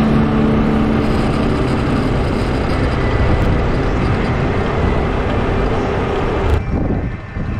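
Steady rushing wind and road noise from a moving vehicle, with a low hum underneath. The rushing drops off sharply near the end.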